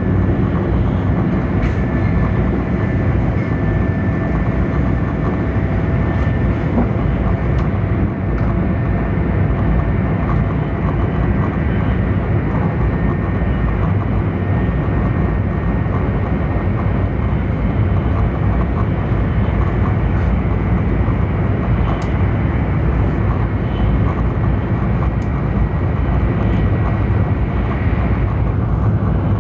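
Cabin noise inside a Taiwan High Speed Rail 700T train running between stations: a steady, even rumble and rush from the running gear and air, with a faint high whine.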